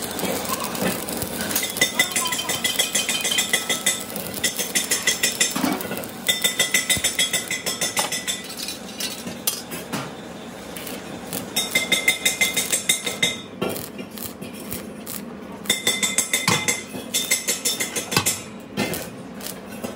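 Bursts of rapid metallic tapping on a small steel LPG cylinder, the thin steel body ringing with each blow, several bursts a few seconds apart. Between them, a rough crackling noise typical of stick welding.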